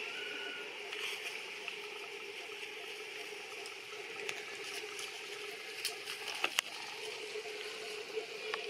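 Steady forest background: an even high hiss and a low hum, with scattered light clicks and rustles of branches and leaves. A cluster of sharper clicks comes about six seconds in.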